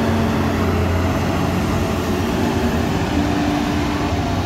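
Caterpillar 320D FM forestry processor's diesel engine and hydraulics running steadily as the upper house swings round and the boom lifts. A steady drone with a few held tones that change pitch about three seconds in.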